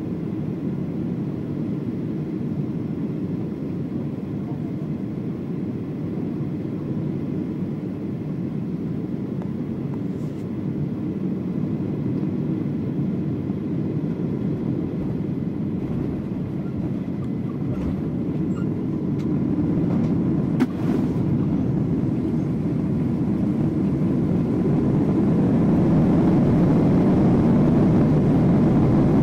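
Inside the cabin of a Boeing 777-200 landing: a steady rumble of airflow and engine noise, then a single thump about two-thirds through as the wheels touch down. After that the GE90 engines spool up in reverse thrust and grow steadily louder toward the end.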